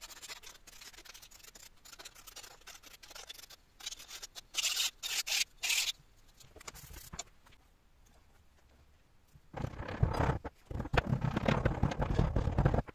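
A flat hand file scraping over the teeth of a 3D-printed plastic gear in short strokes, loudest in a quick run of bright strokes about five seconds in. It is smoothing away a raised edge left by a printer fault so the pattern won't tear the sand mould. After a pause, casting sand is packed into a small moulding flask with a wooden block, a dense run of loud packing sounds through the last few seconds.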